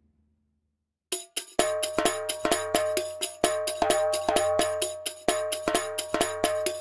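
Sampled Anatolian percussion from the Percussion Of Anatolia Kontakt library, played as a quick, even run of strikes at about five a second with a jingly, ringing tone held under the hits. It starts about a second in and stops near the end.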